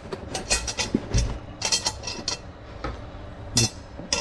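Steel-wire trivet and handle clinking and scraping against the inside of a cast-iron Dutch oven as they are worked into place, a string of irregular sharp metallic clinks and knocks, the loudest a little past halfway.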